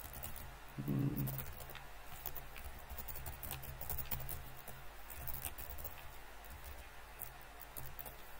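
Computer keyboard typing: irregular runs of sharp key clicks. About a second in there is a brief low sound, the loudest moment.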